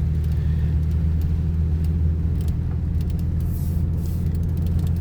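Four-wheel-drive truck driving on a gravel road, heard from inside the cab: a steady low engine and tyre rumble with scattered light clicks.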